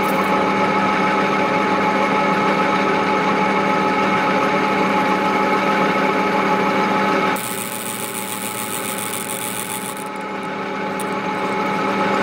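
Metal lathe running steadily with a steady whine while a drill bit in the tailstock chuck bores the centre of a small spinning metal workpiece. About seven seconds in the sound drops and a high hiss comes in for a few seconds, then the whine builds back.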